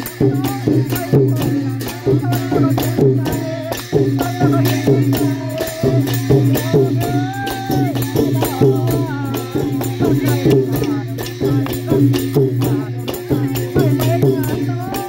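Thai klong yao long-drum band playing live: drums and hand cymbals keep up a fast, steady beat, about four strikes a second, with voices singing along.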